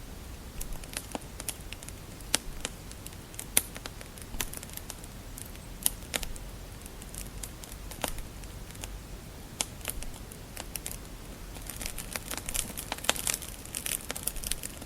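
Wood fire crackling in a fireplace: scattered sharp pops and snaps over a low steady rumble, thickening into a dense run of crackles about twelve seconds in.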